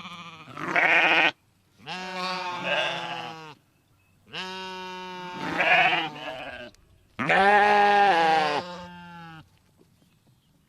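Sheep bleating: about four long, wavering baas one after another with short gaps, then a pause near the end.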